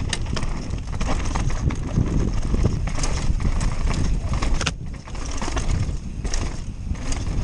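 Mountain bike descending a rocky dirt trail: tyres crunching over stones and the bike rattling with irregular knocks, over a constant low rumble of wind on the microphone.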